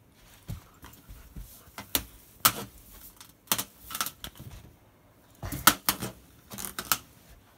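A German Shepherd mouthing and pawing at an inflated rubber balloon: irregular sharp taps and thumps in clusters, busiest about five to six seconds in.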